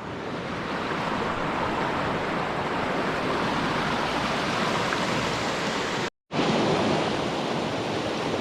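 Steady wash of water along a bay shore, small waves lapping, breaking off for a moment about six seconds in and then going on as before.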